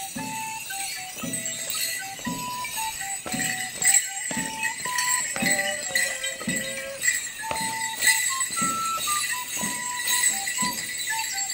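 Live folk dance tune played as a single melody line, with Morris dancers' leg bells jingling throughout and a steady low beat about once a second.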